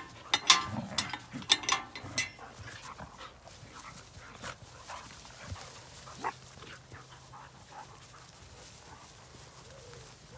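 Dogs play-fighting: a quick run of sharp barks and yips in the first two seconds, then a few quieter yips spaced out as the play carries on.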